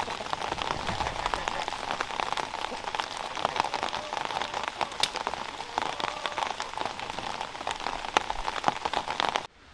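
Rain falling on a hard surface: many small drop impacts close together, with a few sharper, louder drops now and then.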